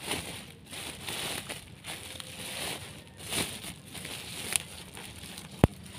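Rustling and crinkling of a woven sack and the weeds and fruit peels being packed into it by hand, with one sharp thump near the end.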